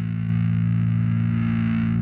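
Heavy metal music with distorted electric guitars holding a low chord, getting louder about a third of a second in.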